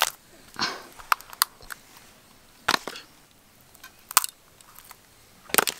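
A crab's shell cracking and snapping as its legs and claws are broken off by hand: scattered sharp cracks, with a quick cluster of them near the end.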